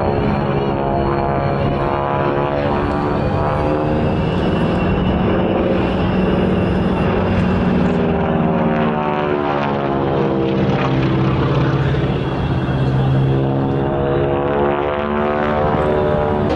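Boeing Stearman biplane's radial engine and propeller running hard through aerobatics, the engine note swinging up and down in pitch as the aircraft turns and passes overhead.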